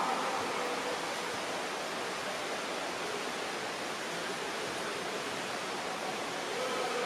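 Steady rushing noise of churning, splashing water in a pool during water polo play, with faint distant voices at the start and near the end.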